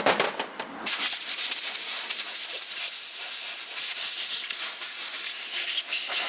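Compressed-air blow gun blowing glass-bead blasting grit off a freshly blasted water pump part. A few short puffs, then from about a second in a continuous, loud hiss of air.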